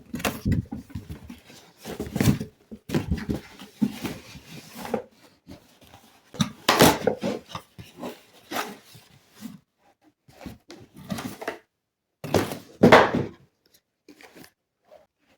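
Packaging of a phone stand being handled and opened: irregular rustles, knocks and thunks, loudest about 2, 7 and 13 seconds in.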